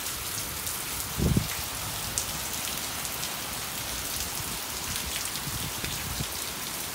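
Thunderstorm rain falling steadily. A brief low thump about a second in is the loudest moment.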